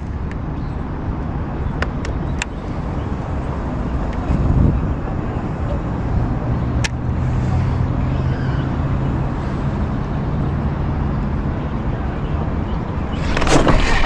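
Steady low engine hum of a motor vehicle, with a few faint ticks; about a second before the end a loud burst of noise sets in.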